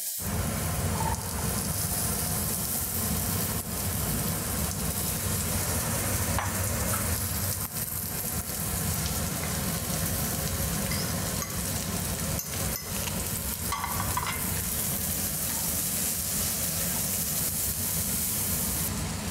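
Onions sizzling in hot oil as they sauté in a pan, with a few taps of the spoon stirring them, over a steady low rumble.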